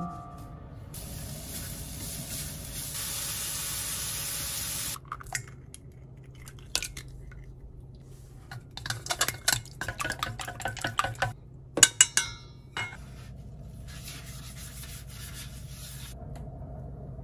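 Julienned carrots sizzling in a hot oiled frying pan, a steady hiss. Then a run of sharp clicks and clinks of eggs and utensils against a stainless steel mixing bowl, with two loud knocks near the end of the run.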